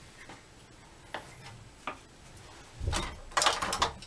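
A few light, sharp clicks, then a short burst of clicking and rustling with a dull thump near the end, as a plastic torpedo level is handled against a wall and taken away.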